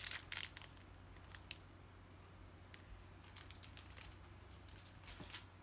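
Small plastic bags of diamond painting drills rustling and clicking as they are handled and set down, mostly in the first half-second, then a few faint isolated clicks.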